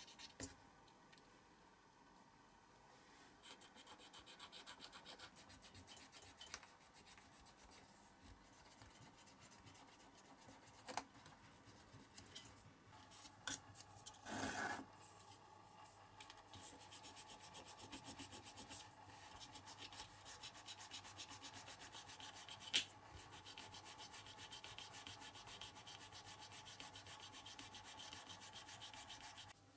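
Fingers and a cotton swab rubbing a small clear plastic model-car window: scattered light scrapes and clicks at first, then fast, even back-and-forth rubbing strokes through the second half. The sound is faint.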